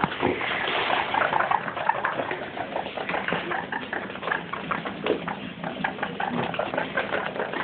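Young guinea pigs making many short squeaks and chirps, amid scratchy clicking.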